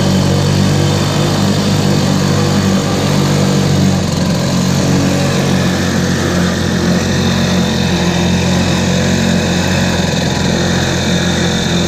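Sears 4 hp two-stroke outboard motor running steadily in a barrel of water, its propeller churning the water. Its note shifts slightly about four seconds in.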